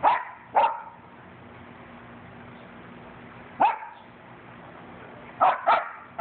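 A dog barking in play: five short, sharp barks, two at the start, one about three and a half seconds in, and two quick ones near the end.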